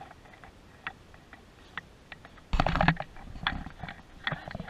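Small glass trinkets clicking and clinking against each other and the display tray as they are picked up and set down. There is a louder rustling thump about two and a half seconds in.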